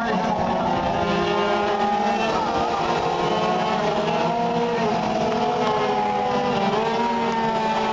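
A pack of race karts running at speed, many small engines whining together at high revs, their pitches rising and falling against each other as they pass.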